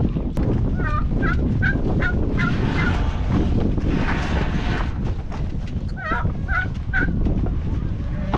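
A turkey calling in two runs of short, repeated notes, about three a second, the first run about a second in and the second around six seconds in, over a steady low rumble.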